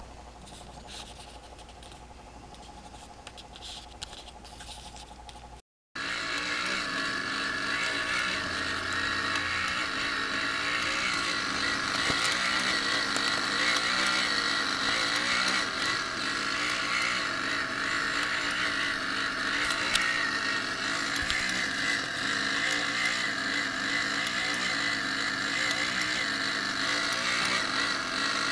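Small electric motor and gear mechanisms of animated Hallmark Keepsake ornaments running. First comes a faint steady whine with a few light clicks. After a brief dropout a few seconds in, a louder steady mechanical buzz follows that wavers in a regular rhythm as the workshop figures move.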